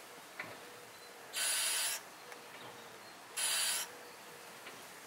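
Brake fluid and air being forced out through the bleeder hose into the catch bottle as the brake pedal is pumped: three short hissing rushes, about two seconds apart.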